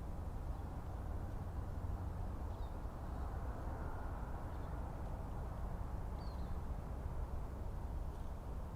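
Forest ambience: a steady low rumble with faint, brief bird chirps a couple of times.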